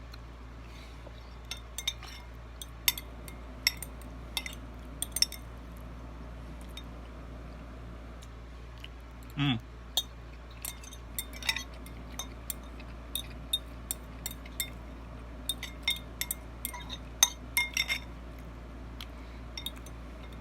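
Eating utensil clinking and scraping against a bowl while food is eaten, in short irregular clinks.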